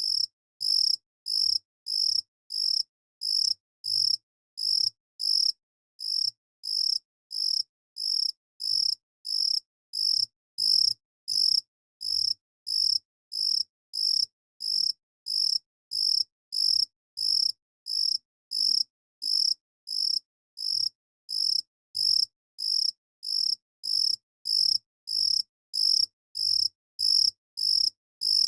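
A cricket chirping in a steady, even rhythm of about two high-pitched chirps a second, with clean silence between chirps.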